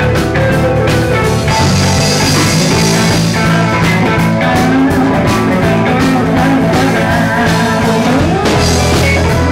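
Live rock band playing loud: electric bass, electric guitar and drum kit together, with a note sliding upward near the end.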